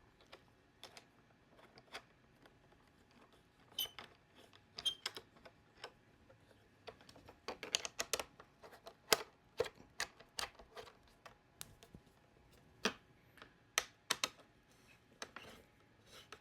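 Scattered light clicks and taps of a carry handle being fitted to a Starlink Mini mount frame and its Allen bolts turned with an Allen wrench, a couple of the taps ringing briefly.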